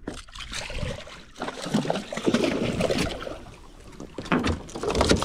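Sea water splashing and trickling against a small boat's hull, with scattered knocks from handling on deck, several of them near the end.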